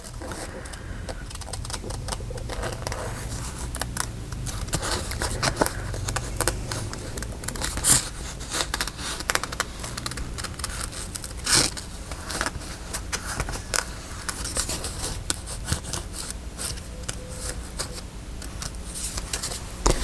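Scissors snipping around a paper cutout in short, irregular cuts, with a couple of sharper snips along the way.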